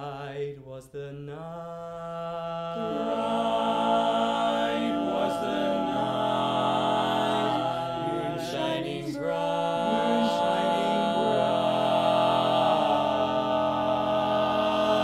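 Male a cappella quartet singing barbershop close harmony: four voices holding sustained chords that change every second or two, swelling louder a few seconds in.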